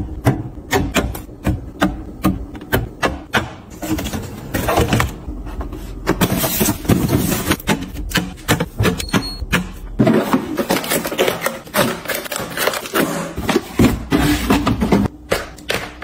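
Plastic drink bottles and plastic yogurt cups set down one after another on glass refrigerator shelves: a quick run of knocks and taps, with stretches of rustling from handling the items in between.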